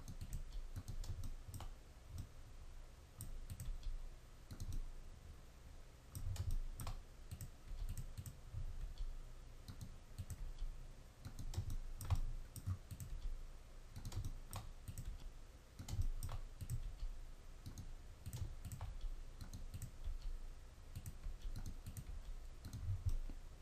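Irregular clicks of a computer mouse and keyboard, the G key pressed again and again to grab and move mesh vertices, over a low steady hum.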